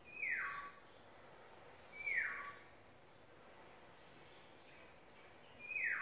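Black-naped oriole giving three calls, each about half a second long and sliding down in pitch. They come near the start, about two seconds in, and just before the end.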